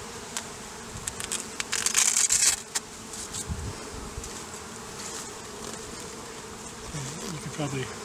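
Honeybees humming steadily around an opened hive. A short burst of clicks and scraping about two seconds in is the loudest sound.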